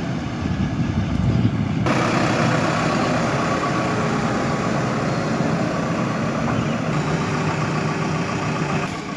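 JCB 3DX backhoe loader's diesel engine running steadily as the machine drives close by with a concrete culvert pipe in its front bucket. About two seconds in, the engine sound gets sharper and a little louder.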